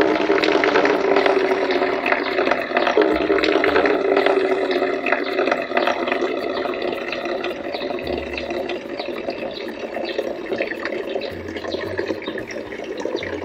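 Running water pouring steadily into a container, starting abruptly.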